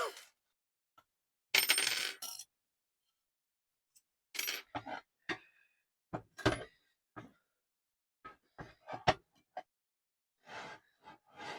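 Small metal parts clinking and rattling as a mini table saw's blade is changed: a short rattle about a second and a half in, then a string of separate light metallic clicks and clinks.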